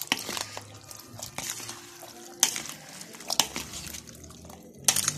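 A spoon stirring a wet chickpea and potato salad dressed with tamarind water in a plastic bowl: soft squelching and sloshing, with a few sharp clicks from the spoon knocking the bowl.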